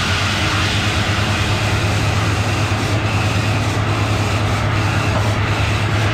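Truck-mounted borewell drilling rig running: a steady low engine drone under loud, rough mechanical noise.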